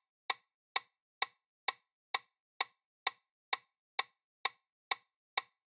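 Countdown-timer ticking sound effect: clock-like ticks, evenly spaced at about two a second, marking the seconds left to answer a quiz question.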